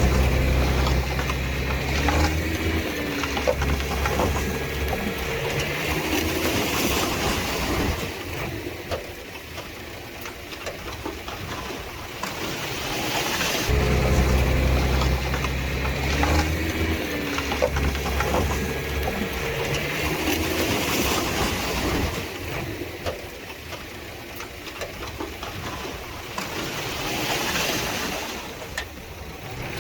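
Diesel engines of heavy earthmoving machinery at work, the engine note rising and falling. Loud, heavy stretches alternate with quieter ones, repeating about every fourteen seconds.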